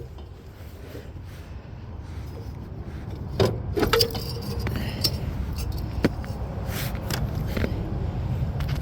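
Hand work on a riding mower's metal parts: scattered metallic clinks and rattles, most of them a few seconds in, over a steady low rumble.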